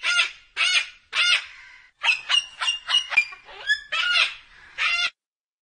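White cockatoo giving a series of harsh squawks: three separate calls, then a quick run of short notes, then two more calls.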